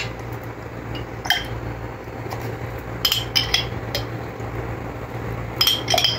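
A metal spoon clinking against the inside of a glass jar as sweetened coconut is scooped out. There are several sharp clinks, a small cluster about three seconds in and another near the end.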